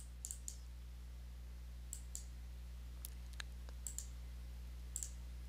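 Computer mouse button clicking: about a dozen sharp, light clicks spread over a few seconds, several in quick pairs like double-clicks. A steady low electrical hum sits underneath.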